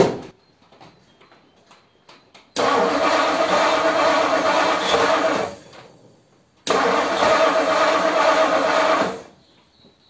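1957 Ford Thunderbird Y-block V8 cranked on the starter in two bursts of about three seconds each, with a short pause between, without catching. A squirt of fuel has been put in the carburettor; the engine is flooded, its spark plugs wet with fuel.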